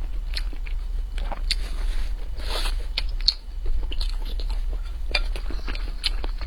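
Close-miked eating of mapo tofu over rice: chewing with irregular wet mouth clicks and smacks, and a soft slurp about two and a half seconds in.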